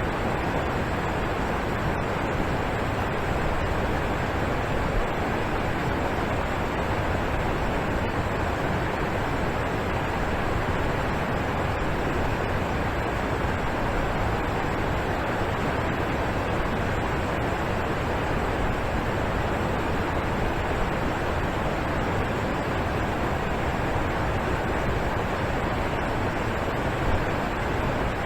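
Alpine waterfall: a steady rush of falling water, even and unbroken.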